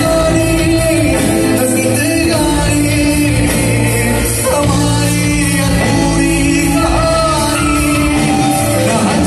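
Live band with a singer, amplified through a PA system in a large hall: a sung melody over steady bass and a regular beat of cymbals.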